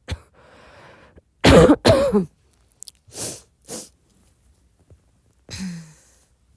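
A woman's coughing fit: two loud, voiced coughs close together about one and a half seconds in, then two weaker coughs, and a softer breathy cough near the end.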